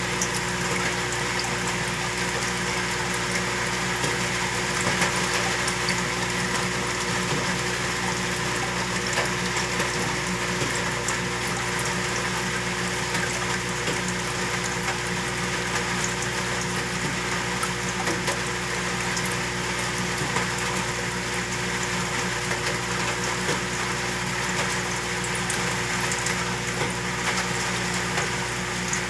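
Saltwater aquarium's pump and water circulation running steadily: a constant hum with an even wash of moving water and scattered faint ticks.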